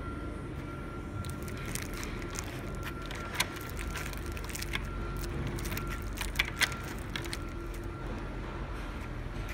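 A key turning in the lock cylinder of a door, the lock giving a sharp click about three and a half seconds in and two quick clicks around six and a half seconds in, over a steady low hum with a faint high tone.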